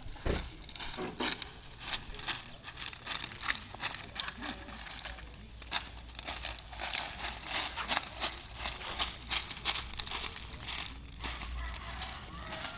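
A spread of sun-dried jack bean pods crackling, with many sharp, irregular clicks several times a second: the pods popping open as they dry.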